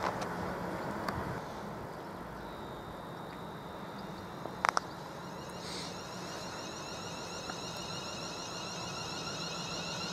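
Class 350 Desiro electric multiple unit approaching, its traction motors giving a faint whine of several gliding tones from about six seconds in over a steady low hum. A sharp double click sounds about halfway through.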